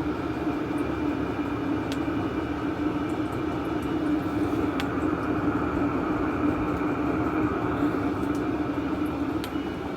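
Chinese 8 kW diesel air heater running steadily on its first start, a continuous whirring hum from its burner and fan.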